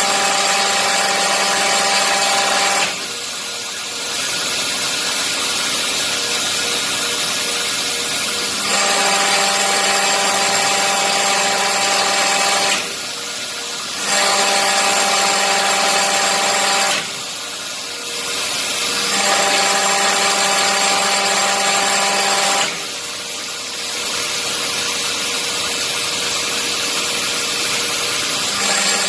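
Hydraulic pump running with a steady whine and a hiss. Four times it drops to a quieter run for a second or two, then the whine returns.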